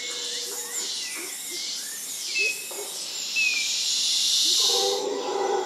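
Forest ambience: birds chirping over a steady high insect buzz, with the insect hiss swelling louder in the middle. Near the end, soft sustained music tones fade in.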